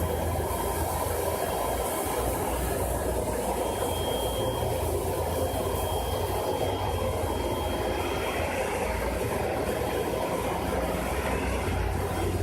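Planet 140 industrial anti-static vacuum cleaner running steadily while sucking up fine low-density polyethylene rotomoulding powder, with a faint high whistle for a few seconds in the middle.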